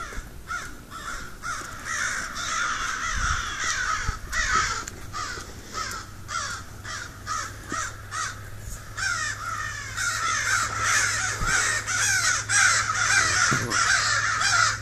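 A big flock of crows cawing without a break, many calls overlapping at once and growing busier about nine seconds in.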